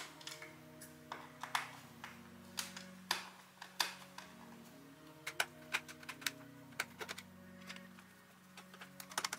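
Irregular sharp clicks and taps of hands handling the plastic body of a partly disassembled robot vacuum, a few per second, over soft background music.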